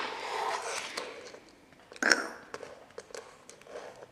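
A fingerboard on a wooden tabletop: a short scraping rustle of the board under the fingers at first, then one clack of the board about two seconds in, with a few light taps after it.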